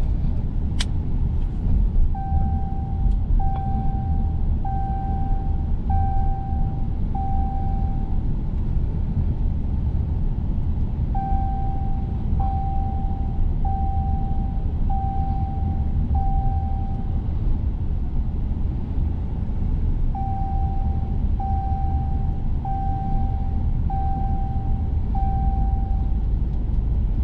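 Steady low rumble with an electronic beep repeating in three sets of five evenly spaced beeps, each set separated by a few seconds' pause.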